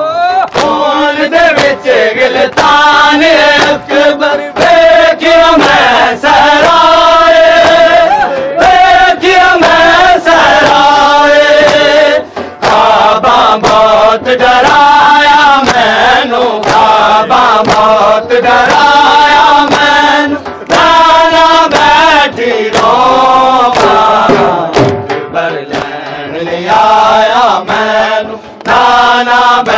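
Men's voices chanting a noha, a Shia mourning lament, loud and sustained in long wavering melodic phrases, with short breaks between them.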